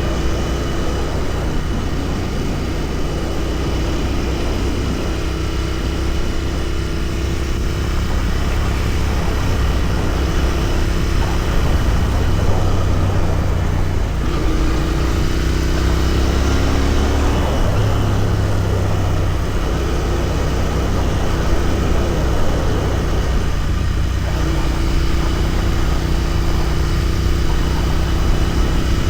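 Royal Enfield Continental GT 650's 648 cc parallel-twin engine running under way, heard onboard while riding. Its note holds steady, shifts in pitch about halfway through, then settles again.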